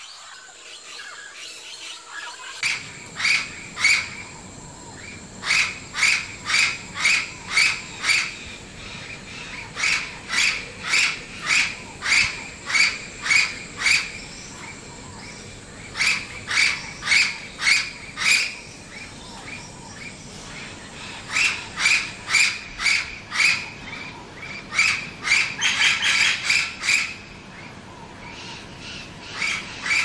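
Amazon parrot squawking: loud calls repeated in runs of several, about two a second, with short pauses between the runs. The calls begin about three seconds in.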